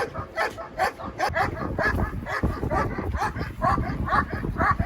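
A dog barking rapidly and without a break, about four short barks a second.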